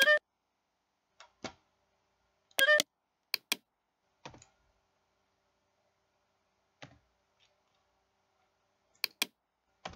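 Computer mouse clicking while lines are drawn in pattern-drafting software: about ten short separate clicks, some in pairs, with silence between. The loudest two, at the start and just under three seconds in, carry a short tone.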